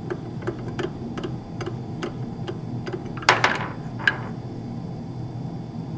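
A steady faint ticking, about three ticks a second, with a brief scraping knock a little past halfway and a smaller one just after, as the white Teflon plunger nut at the bottom of an HPLC autosampler syringe unit is loosened and taken off by hand.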